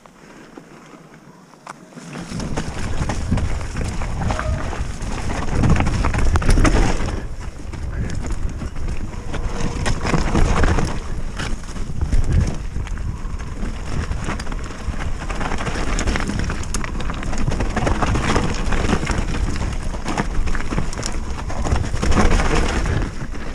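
Specialized Stumpjumper mountain bike descending a rough dirt singletrack: tyres rumbling over the ground with frequent knocks and rattles from the bike, and wind buffeting the action-camera microphone. Quieter for the first two seconds on smooth gravel, then loud and continuous once on the rough trail.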